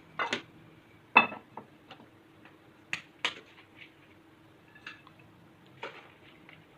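Spoon and dishes clinking and scraping as the salad is served onto a plate: a string of short, irregular knocks and scrapes, the loudest a ringing clink about a second in.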